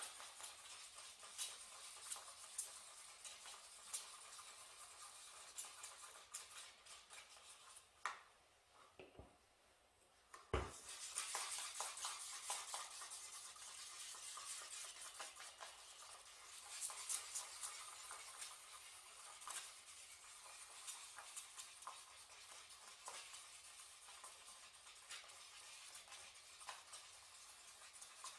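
Water-based paint being stirred in small cups: faint, continuous light scraping with small clicks of the stirrer against the cup. There is a short lull about ten seconds in, ended by a single sharp knock, and then the stirring goes on.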